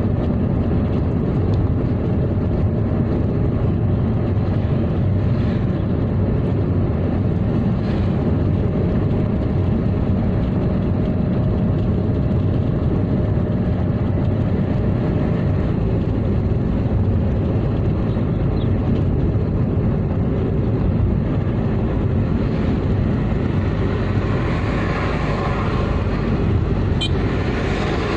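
Car driving along a highway at a steady speed, its engine and tyre noise running evenly, with a brighter rush of noise building near the end.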